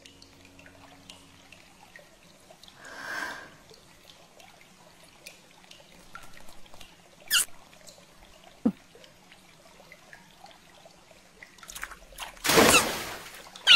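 Hot-spring bath water trickling and pouring, with faint drips and small clicks. A brief high sliding sound comes about seven seconds in and a short low thud soon after, and a loud rush of noise comes near the end.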